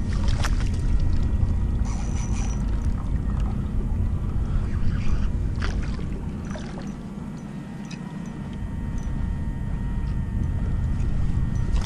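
Wind rumbling on the microphone and water lapping around a fishing kayak, easing off for a couple of seconds around the middle, with a few short sharp splashes from the hooked fish at the surface.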